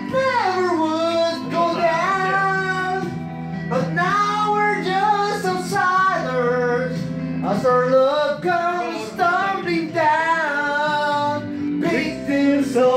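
Karaoke singing: a man sings a slow melody into a handheld microphone, the long held notes rising and falling over a backing track of steady chords.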